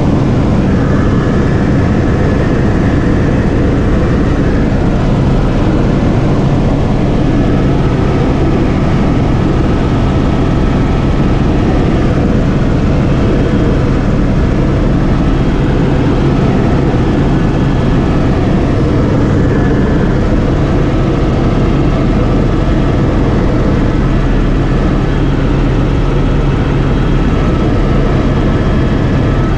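Helicopter in flight heard from inside the cockpit: the engine and rotor make a loud, steady drone with a faint high whine over it.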